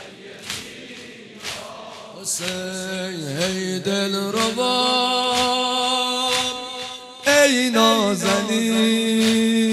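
Male chanting of a Persian nohe, a Muharram lament, in long held notes that slide between pitches. The chanting comes in about two seconds in and starts a new phrase about seven seconds in. Underneath runs a rhythmic beat of mourners striking their chests in unison, roughly one stroke a second.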